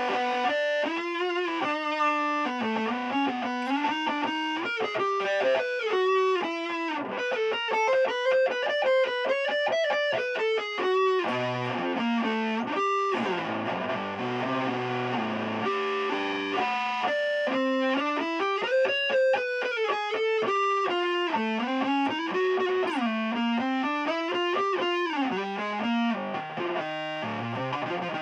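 Electric guitar played through a Keeley Compressor Mini, an Electro-Harmonix Big Muff Pi Nano fuzz and an EHX Soul Food overdrive, all switched on, giving a distorted, sustaining tone. Quick single-note lead runs climb and fall, with a denser held passage about halfway through.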